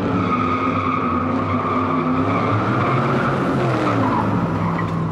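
Car burnout sound effect: tires squealing steadily over a high-revving engine, whose pitch drops a little near the end.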